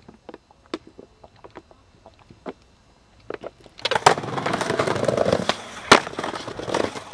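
A few scattered faint clicks, then from about four seconds in a skateboard grinding along a rough concrete ledge: a loud, continuous scrape full of clattering, with a sharp knock about six seconds in.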